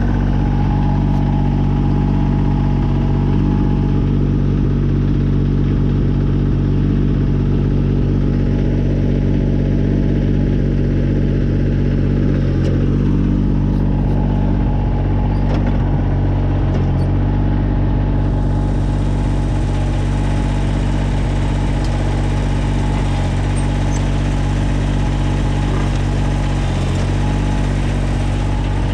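Kubota BX22 compact tractor's small three-cylinder diesel engine running steadily, with a few brief dips in its note.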